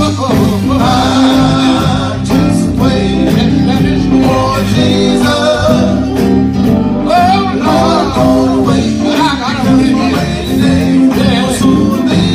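Background music: a song with a singing voice over a band, with steady bass notes and a regular beat.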